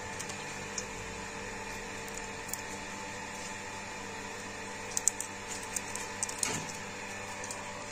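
A steady machine hum, with a cluster of sharp clicks and knocks about five to six and a half seconds in.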